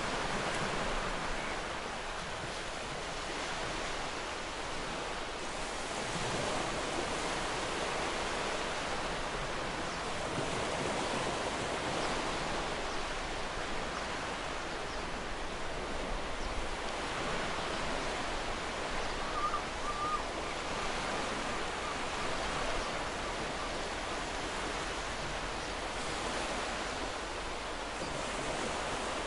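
Sea waves washing onto a shore: a continuous hiss of surf that swells gently every few seconds.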